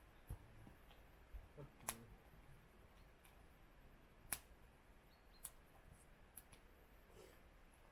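Near silence with a handful of faint, sharp clicks, the loudest a little past four seconds in.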